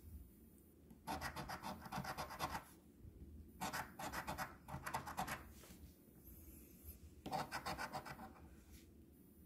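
A coin scraping the latex coating off a scratch-off lottery ticket. It comes in several bursts of quick back-and-forth strokes with short pauses between.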